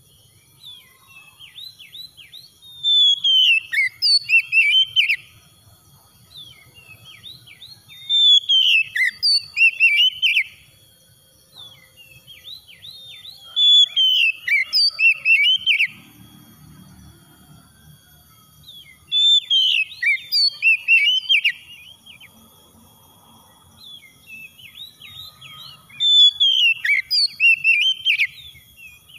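Oriental magpie-robin singing: five loud song phrases about every five to six seconds, each a quick run of rising and falling notes, with softer scattered chirps between them.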